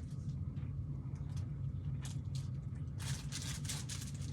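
Crisp crackling and crunching as a thin caramel-and-chocolate piece is bitten and chewed, densest about three seconds in.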